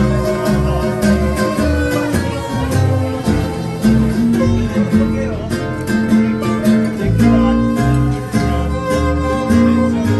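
Acoustic swing band playing live: bowed fiddle over two acoustic guitars, with a bass line underneath.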